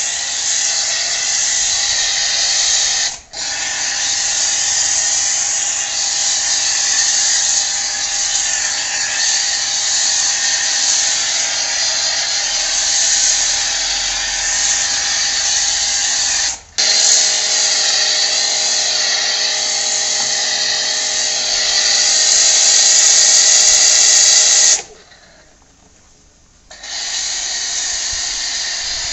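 Watson WT-PW110 electric pressure washer running under load with a foam cannon spraying: a steady motor-and-pump whine under a loud hiss of foam jetting out. The sound breaks off for a moment about three seconds in and again midway, then drops out for about two seconds near the end before picking up again.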